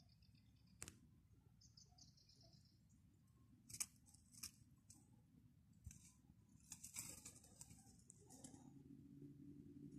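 Near silence outdoors, broken by a few faint soft rustles and clicks, with a short run of faint high chirps about two seconds in and a faint low hum that begins near the end.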